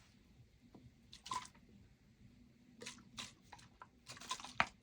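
Faint wet squishing, dripping and small clicks of sticky slime and its containers being handled while borax activator is readied. The sharpest click comes near the end.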